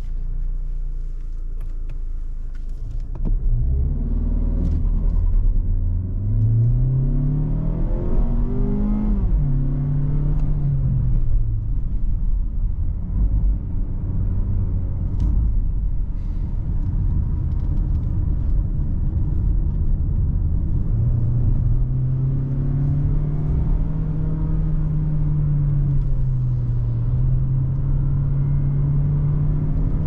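Mazda CX-30 20S's 2.0-litre four-cylinder petrol engine accelerating under way: its note climbs for about five seconds, drops at a gearshift, settles while cruising, then picks up again about two-thirds of the way through and holds. Steady tyre and road rumble runs underneath.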